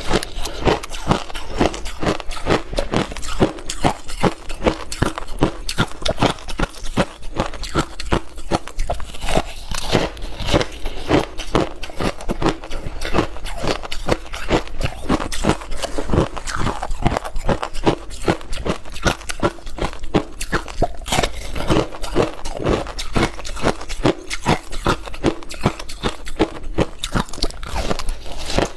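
Close-miked biting and chewing of packed shaved ice soaked in passion fruit juice: a steady run of crisp crunches, several a second.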